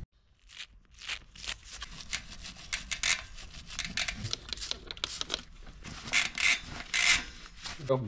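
A stiff brush scrubbing muck and grime off a mountain bike's bare rear-hub driver (freehub body), in quick, irregular scratchy strokes.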